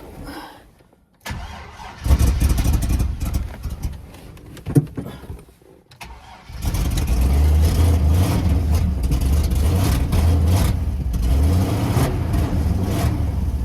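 A Chevrolet Silverado's 6.0 L LS V8 being cranked and briefly firing, then catching a few seconds later and running on with a low, uneven rumble. It won't stay running well, which the owner puts down to a fuel problem: the truck is nearly out of gas.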